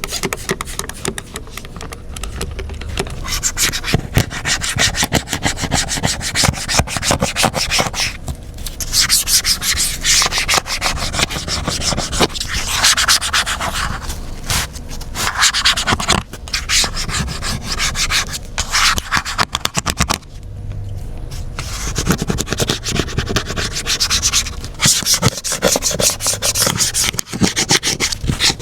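Scrubbing and rubbing strokes on a dirty iPad's casing during a deep clean: a dense, scratchy rasp that comes in runs of a few seconds, with brief pauses about eight seconds in and again about twenty seconds in.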